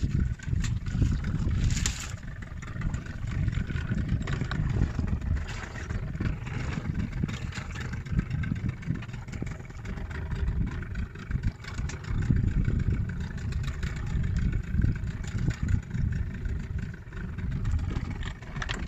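Small fishing boat's motor running steadily while under way at sea, with wind rumbling unevenly on the microphone.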